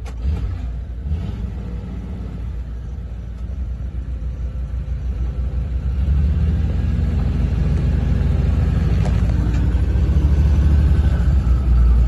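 Tractor engine running with a steady low rumble, getting louder about halfway through as the tractor moves forward.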